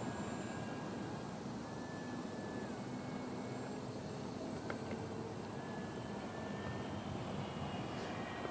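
Electric motor and propeller of a Carbon-Z T-28 RC scale model plane, whining thinly as it flies overhead. The tone drops out around three seconds in and returns slightly higher about six seconds in as the throttle changes.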